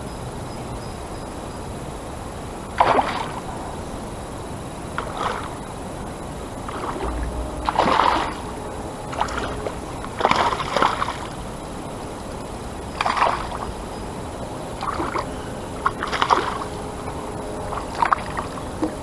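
Water sloshing, with short irregular splashes every two to three seconds over a steady background hiss.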